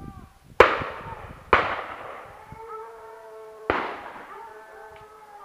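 Three gunshots, the second about a second after the first and the third about two seconds later, each echoing away, with hounds baying around a wild boar held at bay.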